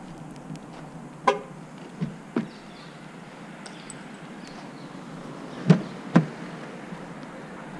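Driver's door of a Mercedes-Benz W204 C-Class estate being opened: two sharp clicks about three quarters of the way in as the handle is pulled and the latch releases. Earlier there is a short pitched sound about a second in and two softer knocks, over a steady street background.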